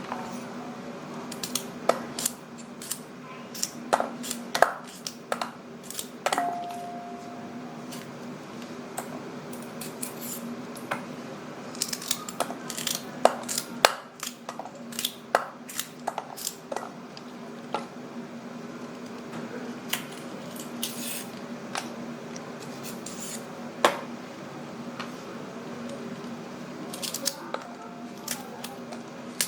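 Knife slicing fresh green beans on a cutting board: a long run of sharp, irregular cuts and taps, sometimes several a second, over a steady low hum.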